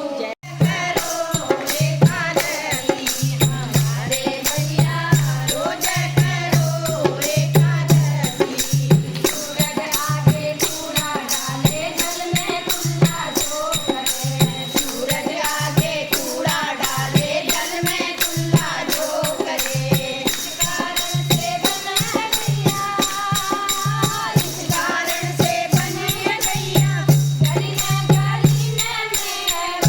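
Hindu devotional bhajan at a kirtan: voices singing a chant-like melody over hand percussion and a drum keeping a steady beat. The sound drops out briefly about half a second in.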